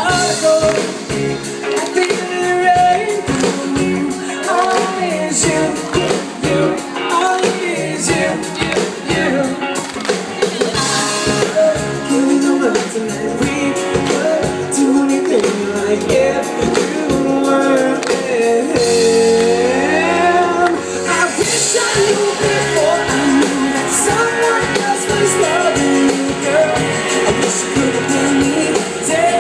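Live pop-rock band playing through a PA: a man singing lead over drums and electric guitar.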